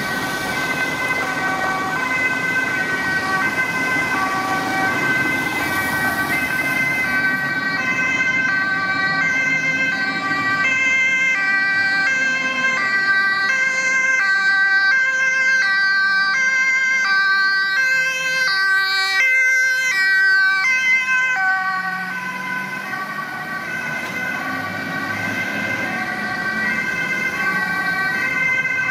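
Dutch fire engine's two-tone siren, alternating high and low continuously as the truck approaches and drives past, loudest around two-thirds of the way through.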